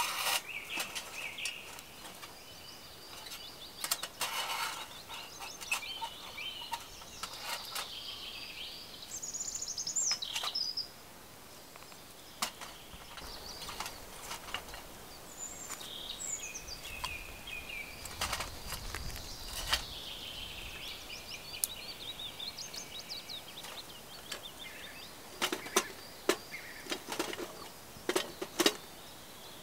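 Songbirds twittering, with scattered clicks and knocks as twigs are fed into a folding metal box stove, and a few sharper knocks near the end as a kettle goes onto the stove.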